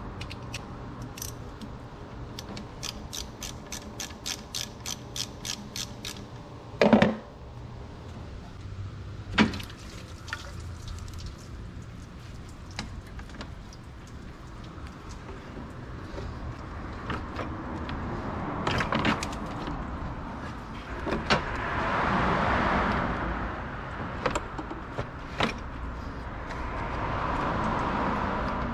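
Ratchet wrench clicking in an even run of about four or five clicks a second, then a loud clank and scattered knocks of tools on the car. A vehicle passing by swells up twice later on.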